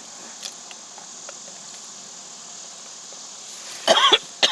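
A woman coughing twice, loud and sudden, near the end, as a mouthful of cheeseburger goes down the wrong way.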